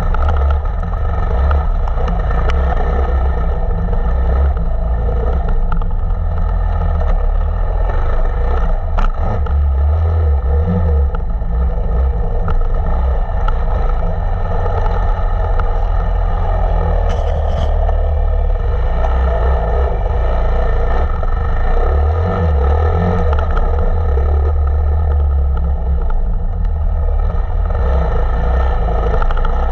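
Off-road motorcycle engine running under way, held at fairly steady revs with small rises and falls, with heavy wind rumble on the microphone.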